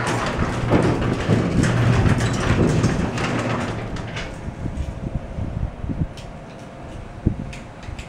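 A garage door opener's motor running with a steady hum under a rough rattling noise, stopping about four seconds in and followed by a few light clicks.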